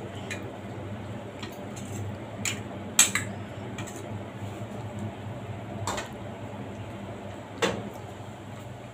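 A metal spoon or ladle clinking against an enamel cooking pot, about five separate sharp clinks spread across several seconds. A steady low hum runs underneath.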